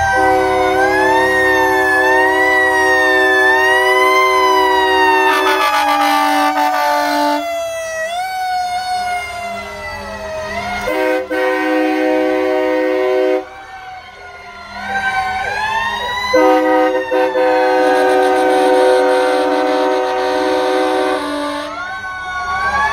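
Several fire engine sirens wailing together, their pitches rising and falling out of step. Fire truck air horns sound three long held blasts over them: one for the first several seconds, one about eleven seconds in, and one about sixteen seconds in.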